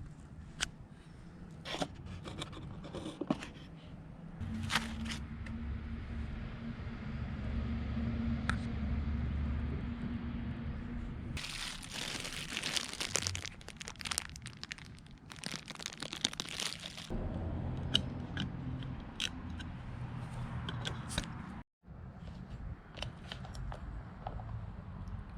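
Plastic packaging being handled, crinkled and torn open, with scattered clicks and rustles of small parts being moved. There are two longer spells of crinkling and tearing, about halfway through and a few seconds later.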